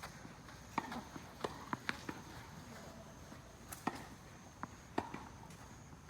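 Tennis ball being struck by rackets and bouncing on the court during a rally: several sharp knocks at uneven intervals.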